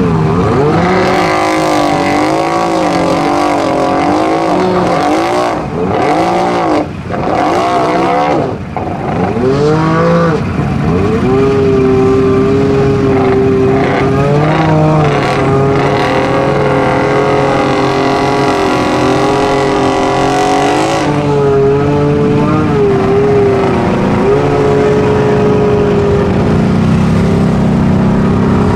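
Side-by-side UTV engine revved up and down over and over while the machine floats in deep pond water, then held at high revs with only small dips as its tires churn it through the water.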